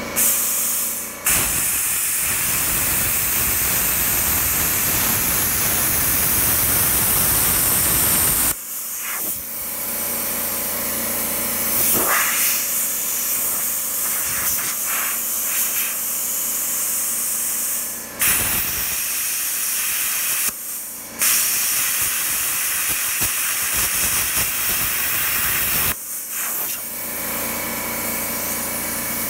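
Plasma cutter cutting steel plate: a loud, steady hiss of the arc and air jet that stops and restarts several times.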